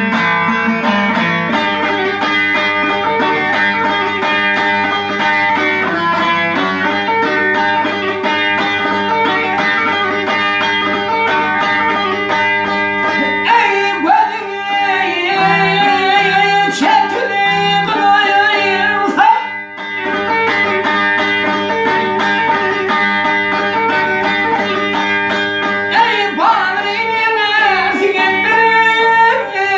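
Music: a song accompanied by plucked string instruments, with a wavering melody line that bends in pitch at times.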